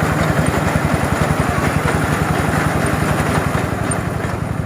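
Engine of a Quick QH 11 mini rice harvester running steadily with an even, fast pulse.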